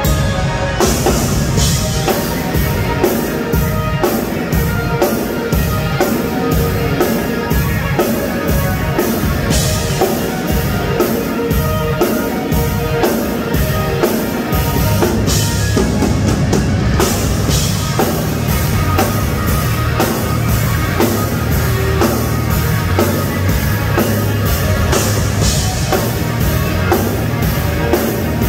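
Live rock band playing loudly, driven by a steady drum-kit beat with guitars, bass and keyboard; the bass gets heavier about halfway through.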